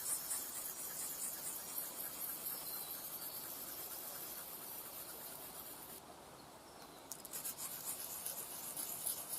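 Leatherman Signal blade scraped back and forth on a wet rock in repeated strokes, honing the edge and working off the burr. The scraping eases about six seconds in, then resumes in short strokes.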